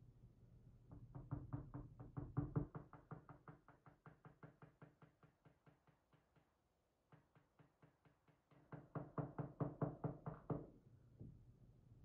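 Rapid, even tapping on a Lips Octro lock's metal cylinder housing, about seven light knocks a second, to shake its pin stacks out. It comes in two runs, with a short pause about six seconds in.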